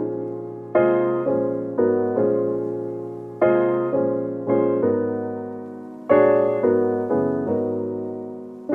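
Lofi background music: soft keyboard piano chords struck one after another, each left to fade, with no drums.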